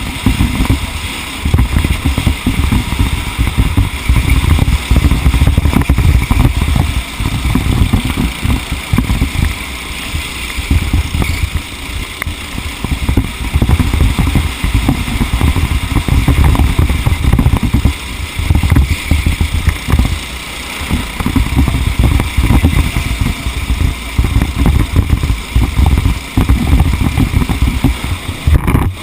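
Race vehicle's engine running under way, heard on board, with a heavy, uneven low rumble of wind buffeting the microphone throughout.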